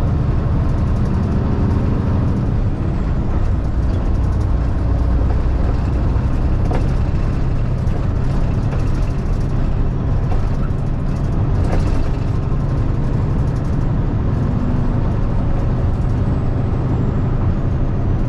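Peterbilt 579 semi truck's engine running under way, heard from inside the cab, a steady low rumble with road noise; the engine note dips briefly about three seconds in.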